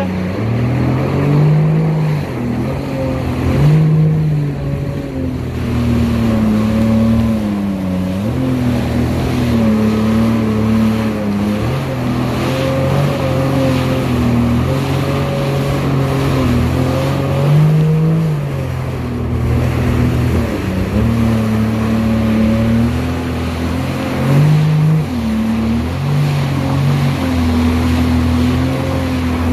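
Jet ski engine running under way, heard from aboard, its pitch rising and falling every few seconds as the throttle changes, over the rush of spray and wind.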